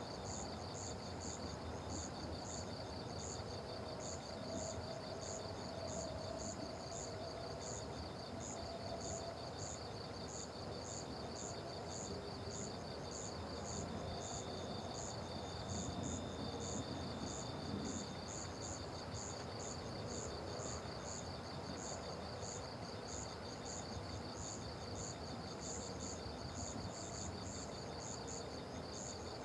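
Chorus of crickets and other insects: a steady high trill, with another insect chirping at a higher pitch about twice a second.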